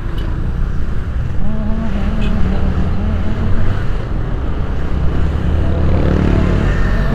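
Motor vehicle engines running close by: a steady, heavy low rumble of traffic, with one engine's note growing louder about six seconds in.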